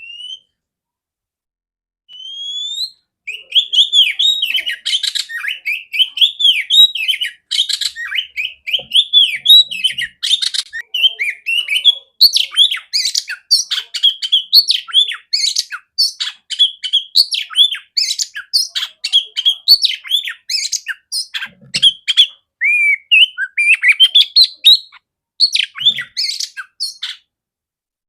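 Oriental magpie-robin (kacer) singing: a long, fast run of varied whistled and chattering notes that slide up and down, beginning after a short rising note and a pause, and stopping shortly before the end.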